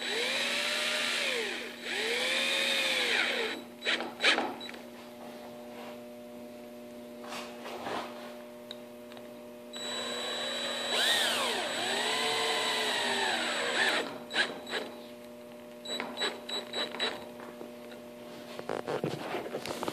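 DeWalt 20V cordless drill driving down worm-drive band clamps on a wooden mast. The motor whine rises and falls in pitch with each run: two short runs near the start and a longer one about ten seconds in. Sharp clicks and knocks come between the runs as the drill is moved from clamp to clamp.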